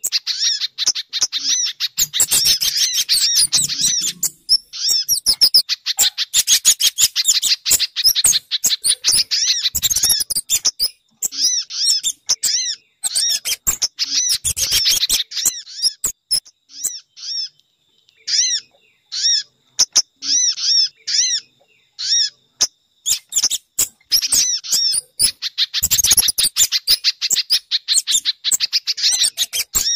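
Bird-lure call recording of small songbirds: rapid runs of short, high, repeated chirps. They thin to separate chirps with short gaps around the middle and become dense again near the end.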